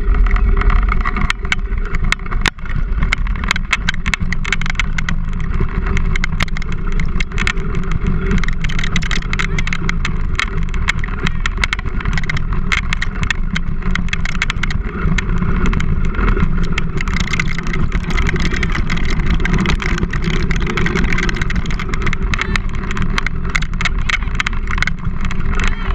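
Wheels of a dog-drawn scooter rig rolling fast over a dirt trail: a steady rumble and hiss with frequent small rattles and clicks from the rig.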